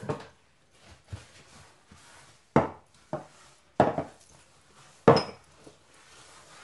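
Small glass dessert bowls set down and shifted on a stone countertop: about half a dozen sharp clinks and knocks with soft handling noise between them. The sharpest comes about five seconds in and has a brief glassy ring.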